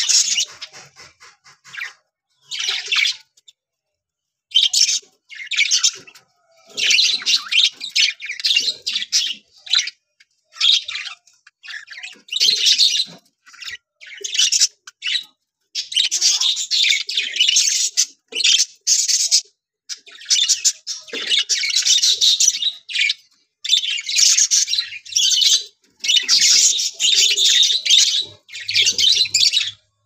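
A flock of budgerigars chattering and chirping: rapid, high-pitched warbling in overlapping bursts with short pauses, including a near-quiet second about four seconds in.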